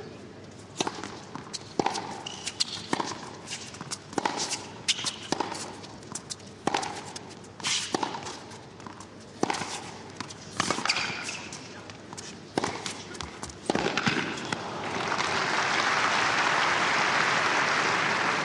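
Tennis rally: sharp pops of the ball struck by rackets and bouncing on the court, roughly once a second. About 14 seconds in the rally stops and crowd applause swells and carries on.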